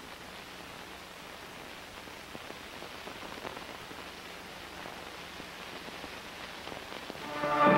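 Steady hiss and crackle of a 1950s film soundtrack, played without noise reduction. Orchestral music with brass comes in at the very end.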